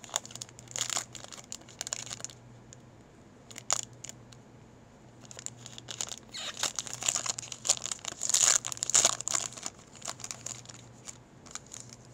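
Trading card pack wrapper crinkling and tearing as it is worked open by hand, in two bouts: a short one at the start and a longer, louder one past the middle, with a lull and a single click between. The pack is tough to open.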